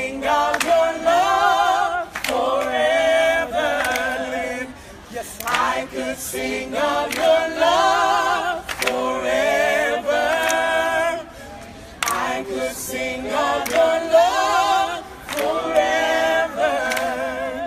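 A group of voices singing a worship song a cappella, in sung phrases of a few seconds with vibrato and short breaks between them.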